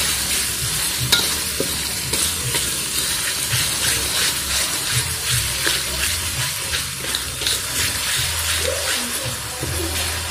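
Ground chili and garlic spice paste with lemongrass frying in oil in a metal wok, sizzling steadily while a metal spatula stirs it, scraping and clicking against the pan, with one sharper knock about a second in. This is the spice paste being sautéed until wilted and fragrant.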